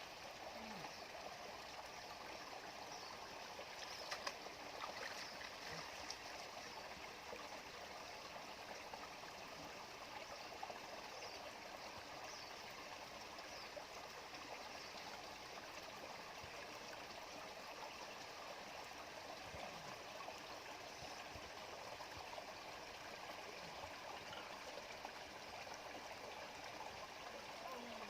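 Shallow stream running over stones, a steady babbling rush of water, with a few brief sharp sounds about four to six seconds in.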